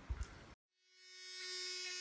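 Electric orbital sander running with a steady, even whine, fading in about a second in after a brief break. A couple of soft knocks come just before it.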